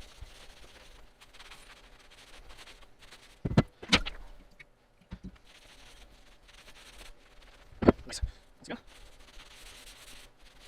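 Two pairs of sharp knocks, each pair about half a second apart, one pair about three and a half seconds in and the other about eight seconds in, over a faint steady hiss.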